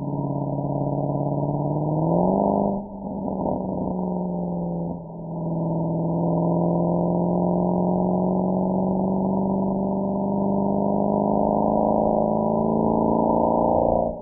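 Mercedes-AMG SL63's V8 exhaust under acceleration. The revs climb and drop with a gear change about three seconds in, dip briefly around five seconds, then settle into a long steady pull with slowly rising pitch.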